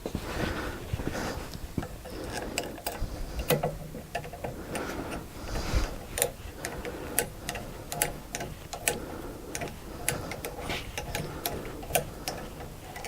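Irregular sharp clicks and ticks, about one or two a second, with rustling handling noise between them: hand tools and metal parts being worked during mill assembly.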